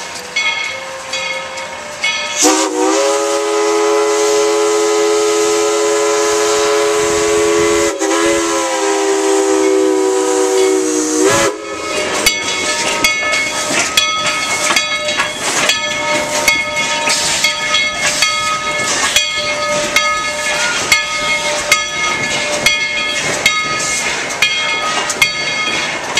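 Steam locomotive's chime whistle blowing two long blasts, several notes sounding together over a hiss of steam. Before and after the whistle, the locomotive's bell rings in a slow, steady beat.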